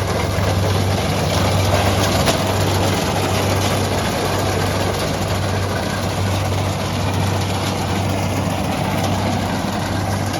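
Heavy diesel engine of a rice combine harvester running steadily with a deep, constant hum.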